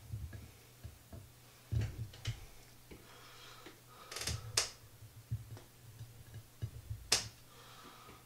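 Slices of kifli being picked up and set down on a plate while a knife spreads tube cheese on them: soft thumps and a few sharp clicks, the loudest about four and a half and seven seconds in.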